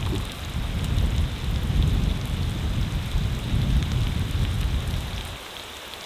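Beef, potatoes and onions frying in oil in a large steel disc pan over a wood fire: a steady sizzle that stops suddenly a little after five seconds in.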